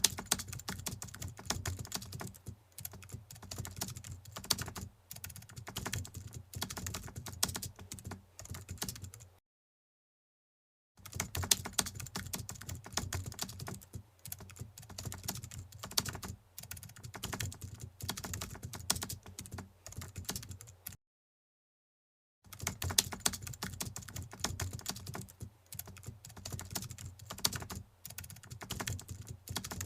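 Rapid keyboard typing clicks in quick runs of a second or two, cutting out to complete silence twice.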